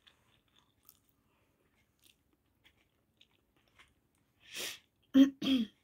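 Faint chewing of a mouthful of food, with small wet mouth clicks. About four and a half seconds in there is a short breathy exhale, and near the end a brief voiced hum.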